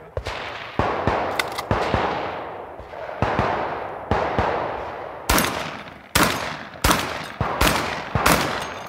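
Rifle fired in a string of single shots, about a dozen, roughly one every half-second to second and a half, each trailing a long echo. The shots get louder from about five seconds in.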